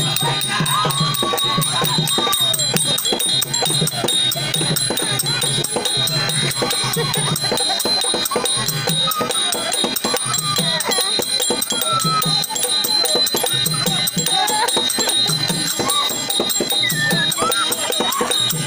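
Live Tamil therukoothu folk accompaniment: a continuous, fast run of drum strokes with a steady metallic jingling rattle and a wavering high melody line over it.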